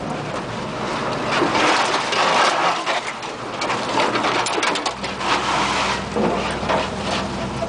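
A 4x4 truck driving an overgrown forest trail, with crackling and crunching from brush and gravel against the truck and under the tyres. The engine's steady low hum runs underneath and grows stronger about five seconds in.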